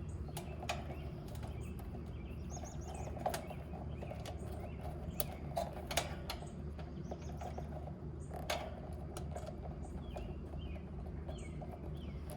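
Scattered sharp clicks and snips as electrical wire ends are cut and handled for a new AC contactor, over a steady low hum. Faint bird chirps come and go.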